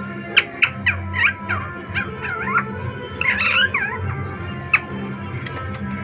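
Rose-ringed parakeets giving a run of short, sharp sweeping calls, densest a little past the middle, over background music with steady held tones.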